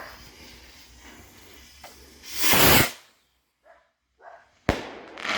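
Skyrocket launching with a short, loud whoosh about two seconds in, then a sharp bang about two seconds later as it bursts overhead, with another burst of noise near the end.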